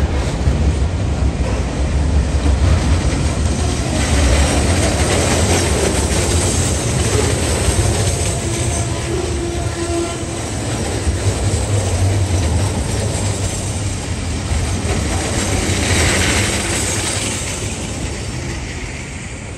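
TasRail freight train's container-laden flat wagons rolling past at close range: a continuous heavy rumble of wheels and bogies, with clicking over the rail joints. The wheel noise grows brighter and louder for a moment about three-quarters of the way through, then eases slightly near the end.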